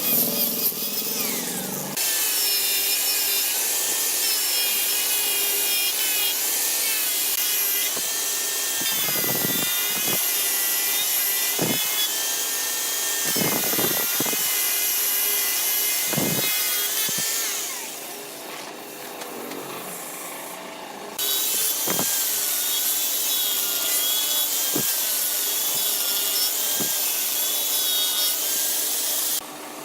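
Wood being cut on a spinning lathe: a steady loud hiss of the tool shaving the wood, with a wavering high whine over it, broken by sudden cuts between clips.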